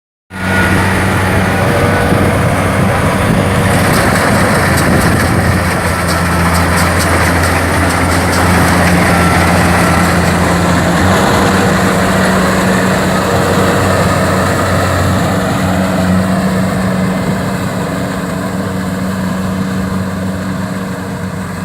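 Kubota DC-70 rice combine harvester running steadily with its diesel engine working at harvest, a deep steady hum with machinery clatter over it. It gets a little quieter over the last few seconds.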